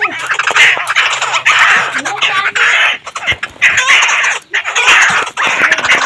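Caged laughingthrush calling: harsh, chattering calls in repeated loud bursts, each under a second long, with a few quick whistled notes among them.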